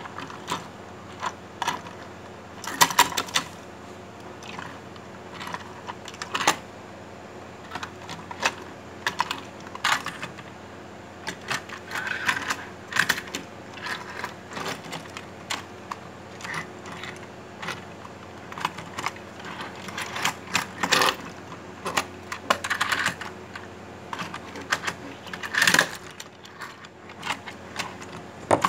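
A worn toy semi-truck and trailer handled on a wooden desk: irregular clicks, taps and short rattles as it is picked up, turned and set down, some in quick clusters.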